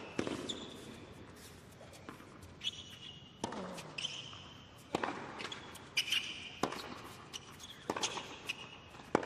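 Tennis rally on a hard court: a ball struck by rackets and bouncing, a sharp hit every half second to a second, with tennis shoes squeaking on the court.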